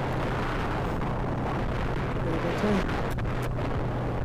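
Wind rushing over the microphone on a moving motorcycle, with the bike's engine running at a steady note underneath.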